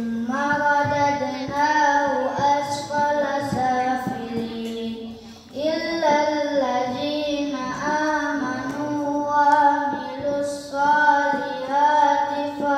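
A child's voice singing a melodic line in phrases with long held notes, with a brief breath-pause about five and a half seconds in.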